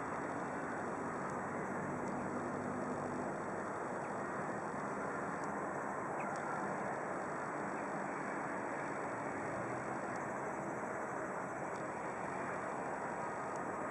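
Steady hum of distant road traffic, an even noise with no single vehicle standing out.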